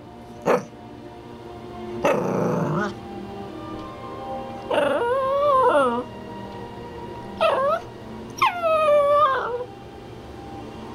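Small Yorkiepoo dog begging for her dinner: one sharp yip, then a rough, noisy bark about two seconds in, then three whining, howl-like calls, each sliding down in pitch at the end.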